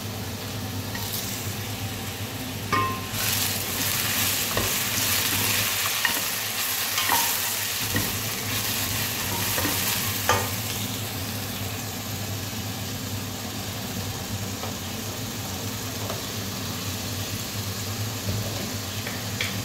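Bottle gourd slices and green chillies sizzling in a little oil in a nonstick pot while a spatula stirs them, with a steady hiss and a few clicks of the spatula against the pot.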